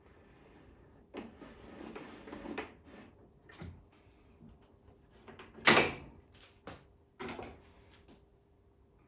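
Handling noises: a stretch of rustling, then several separate knocks, the loudest a sharp knock about six seconds in.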